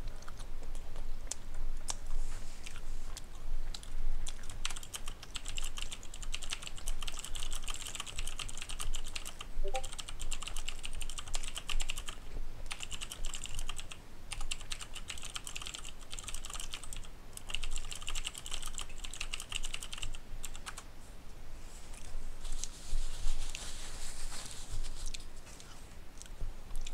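Rapid typing on a computer keyboard, in runs of quick key clicks broken by short pauses.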